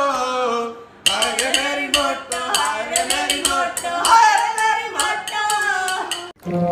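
A man and a woman singing together while the man beats a rhythm with his hands on an upturned steel cooking pot. Both drop out briefly about a second in, start again, and cut off suddenly shortly before the end.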